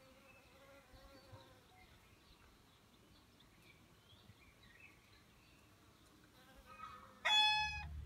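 Faint insect buzzing with scattered bird chirps, then near the end a rooster crows once, loud and short, and a low rumble sets in.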